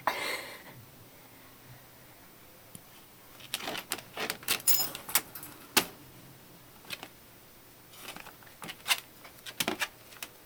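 Jingling and clinking of a corgi's metal collar tags in two bursts of quick clicks, with a short rustling noise at the very start.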